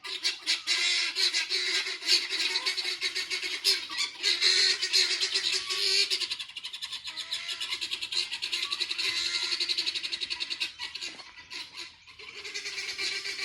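Guinea fowl calling: a rapid, continuous run of repeated loud cries, with a short lull near the end before the calling starts again.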